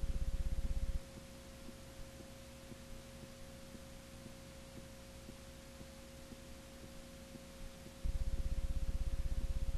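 Electrical hum and buzz on the audio of a blank black picture: a loud, low pulsing buzz cuts out about a second in and returns about eight seconds in, under a faint steady high tone and hiss.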